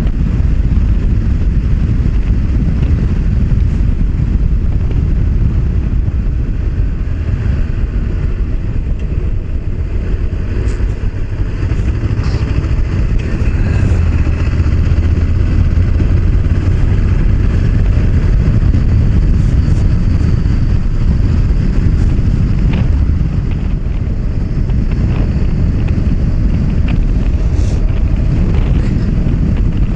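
Honda CB500X parallel-twin motorcycle riding along at road speed, its engine running under a heavy, continuous low rumble of wind on the action-camera microphone.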